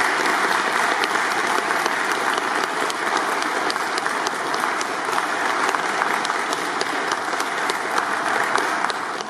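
Audience applauding steadily, many hands clapping at once; the clapping dies away at the very end.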